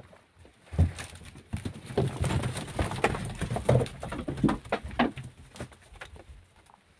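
Straw bedding rustling close to the microphone, with knocks and low thuds, and a few short low animal calls.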